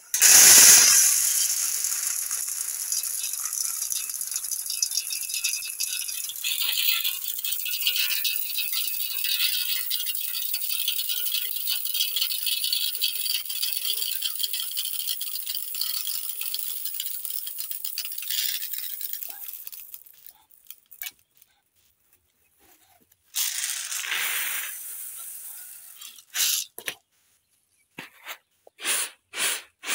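Dry maize kernels poured in a stream from a sack into an aluminium basin: a continuous rattling hiss for about twenty seconds, loudest as the pour begins. After a pause come a few short bursts, and near the end a regular rattle about twice a second as grain is shaken in a woven winnowing tray.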